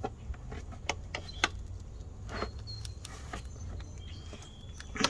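Scattered light clicks and clinks of a hand tool working a nut tight on the jack's wiring, irregularly spaced, over a low steady rumble.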